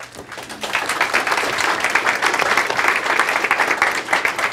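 Audience applauding, building over the first second and then holding steady.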